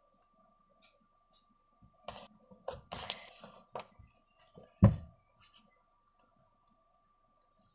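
Small objects being handled: scattered light clicks and taps, a brief rustle about three seconds in, and one sharp knock about five seconds in, over a faint steady high whine.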